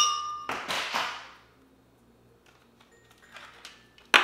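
Ice cubes being knocked out of a plastic ice tray into a glass blender jar: a sharp clink with a short ring as the first cube hits the glass, then a clattering rattle. After a quiet pause come a few faint clicks and another loud clatter near the end.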